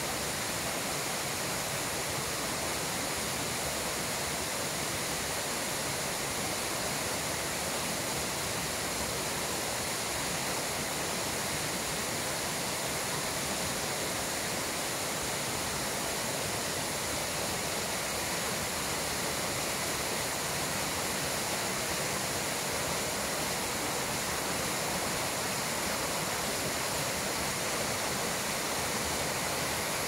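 Waterfall pouring down a rock face onto stones: a steady, unbroken rush of falling water, mostly hiss with little deep rumble.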